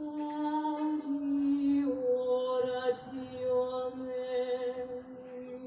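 A woman singing long held notes without words in a slow, chant-like line that steps down in pitch about two seconds in.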